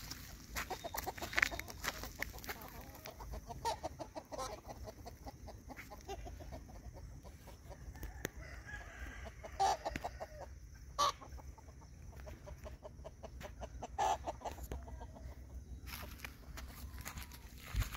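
A flock of free-range native country chickens clucking as they forage, with scattered short calls and a few louder, sharper calls about ten, eleven and fourteen seconds in.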